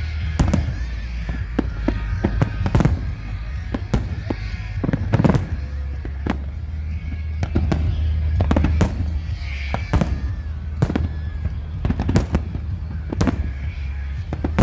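Fireworks display: sharp bangs and crackles about one or two a second, some in quick pairs, over a steady low rumble.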